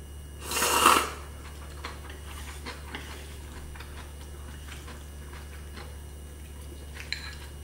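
Ramyun noodles slurped once, loudly, about half a second in, followed by faint chewing and small clicks of metal chopsticks against the pot as more noodles are lifted, over a steady low hum.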